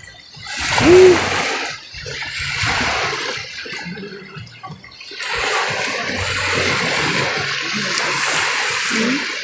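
Water rushing and splashing in three surges, with a short pitched sound about a second in.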